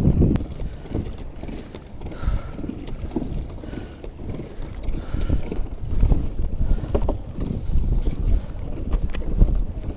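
Wind rumbling on the microphone over water sloshing against a fishing kayak, rising and falling unevenly.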